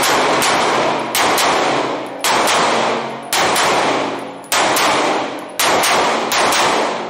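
Compact semi-automatic pistol fired at an indoor range, about six shots roughly one a second, each shot ringing on in a long echo off the concrete walls.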